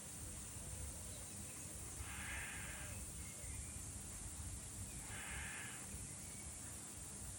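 A crow cawing, two long harsh caws about three seconds apart, over a steady high hiss.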